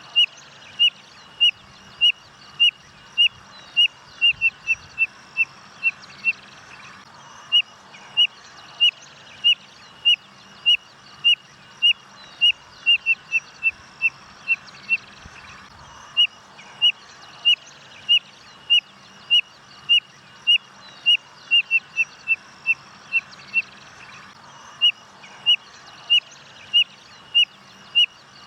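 Spotted nothura (codorna-amarela) singing: a long series of short, high whistled notes about two a second. The notes quicken into a faster run three times, each run followed by a short pause.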